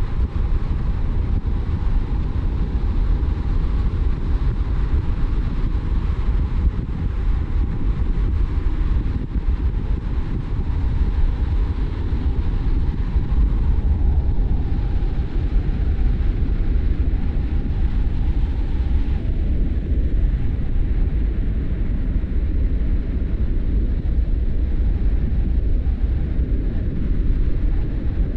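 A car being driven along a road: a steady low rumble of engine and road noise with a fainter hiss above it, which thins a little about two-thirds of the way through.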